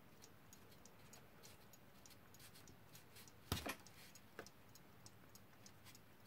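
Faint, even ticking of a Smiths alarm clock's running movement, its balance and hairspring still swinging. A sharper pair of metal clicks comes about three and a half seconds in and a smaller one a second later, as pliers work the hairspring's pinning wedge.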